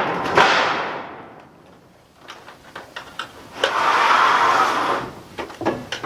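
Steel roofing sheet being handled and slid over the roof, with a swell of rushing scrape near the start and again near the end, and scattered clicks and knocks of metal between them.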